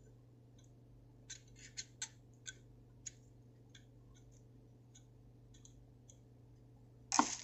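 Small, scattered clicks and light scratches of fingers working a Zippo-style lighter insert, folding the wick and cotton packing into it, with a louder handling knock near the end.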